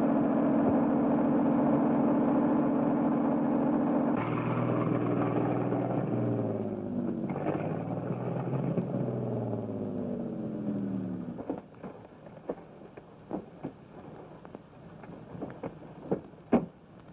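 A 1930s car engine running steadily, then its pitch falls away over several seconds as the car slows and stops. After that come a few scattered clicks and knocks.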